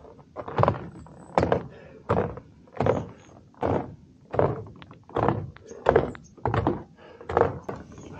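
A hiker's footsteps climbing stone stairs: a steady thud about every three-quarters of a second.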